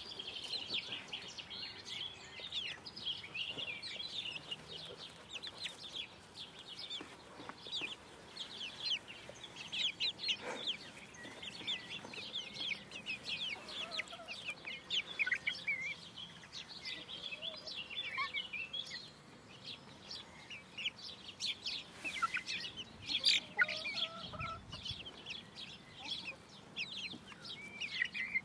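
Several five-week-old bantam Wyandotte chicks peeping continuously: a steady stream of short, high cheeps, with a few lower calls now and then.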